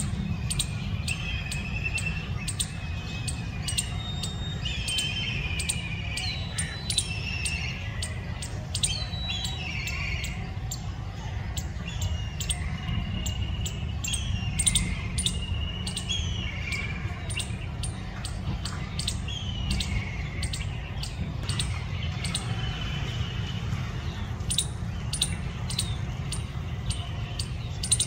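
A squirrel giving rapid, sharp high-pitched chip calls in irregular runs. Warbling bird-like whistles come and go, mostly in the first half, over a steady low rumble.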